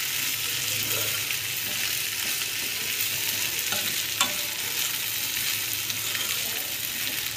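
Fried sweet corn kernels with onion, capsicum and tomato sizzling in a kadhai as a spatula stirs and tosses them. There is a steady sizzle, and a couple of light clicks of the spatula against the pan come about midway.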